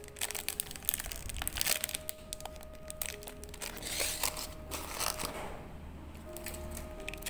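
Clear plastic bag crinkling and shredded-paper box filler rustling and crunching as a bagged squishy is pressed down into a cardboard box, over background music.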